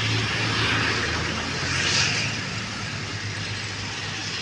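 Steady road-traffic rumble with a low engine hum, swelling briefly about two seconds in.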